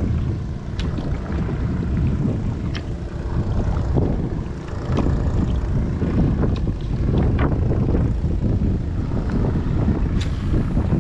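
Strong wind buffeting the microphone, a loud low rumble, with scattered light clicks and knocks through it.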